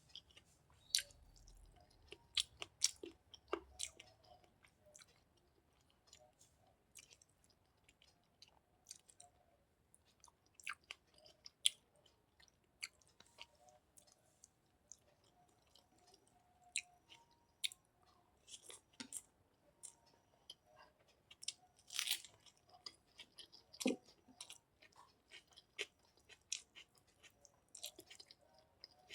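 A person chewing a curry-and-fish meal close to the microphone: irregular, sharp wet mouth clicks and smacks, the loudest a little past two-thirds of the way through.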